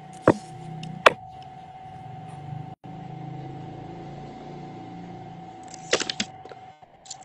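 Sharp clicks and knocks of a phone being handled, two loud ones in the first second and a cluster about six seconds in, over a steady high-pitched electrical hum.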